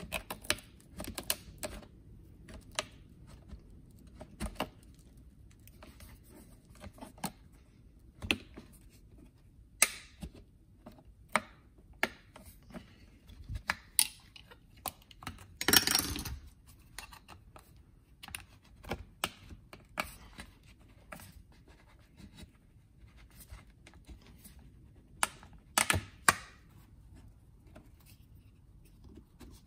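Screwdriver and pick tips prying and scraping at a plastic piece wedged tightly in the aluminium housing of a BMW fuel filter and pressure regulator: irregular clicks and short scrapes, with a longer scrape about sixteen seconds in and a quick pair of clicks near the end.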